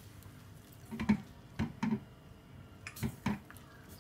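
A spatula stirring cubed sweet potato in thin jaggery syrup in a steel pan: wet stirring with about six short, irregular knocks of the spatula against the pan, some in quick pairs.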